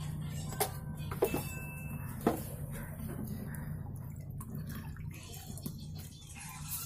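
Long steel ladle stirring thin fish-curry gravy in a black pot to mix in salt, with a few sharp clinks of the ladle on the pot in the first couple of seconds, over a steady low hum.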